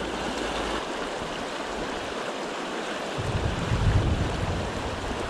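Creek water rushing steadily. About three seconds in, a low rumble of thunder rolls in under it.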